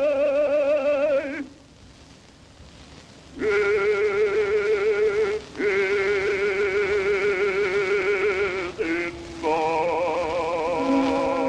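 Bass-baritone singing long held notes with wide vibrato, from an oratorio, in an old narrow-band recording. A rest of about two seconds comes a second and a half in, with only hiss under it, and the singing resumes with sustained notes broken by short breaths.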